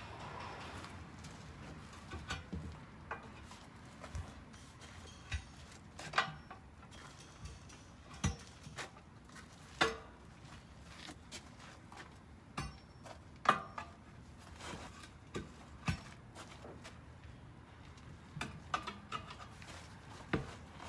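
Metal tools and fittings being handled: irregular knocks and clinks every second or so, a few ringing briefly.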